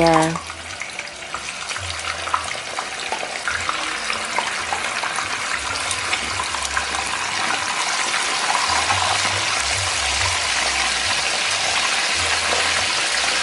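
Raw chicken pieces frying in hot oil in a wok: a steady crackling sizzle with small pops. It builds over the first several seconds as more pieces are lowered in with tongs, then holds.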